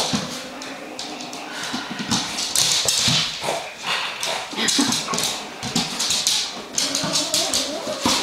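Beagle puppy scrambling and pouncing on a hardwood floor, its claws clicking and tapping in quick, irregular runs.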